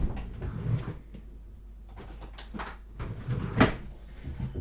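Items being handled on a workbench: scattered light knocks and rustling, with one sharp knock about three and a half seconds in.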